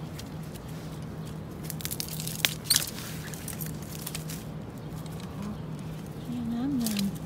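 Dry bamboo leaves and stems rustling and crackling as a person pushes through a dense bamboo thicket, with a couple of sharp snaps about two and a half seconds in. A low steady hum runs underneath, and a brief low pitched sound rises and falls near the end.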